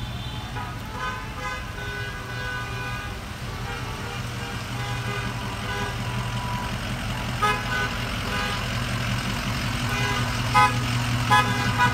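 Car horns honking as a slow line of vehicles drives past, over a steady engine rumble: longer honks in the first few seconds, a short beep about halfway through, and a quick run of short beeps near the end.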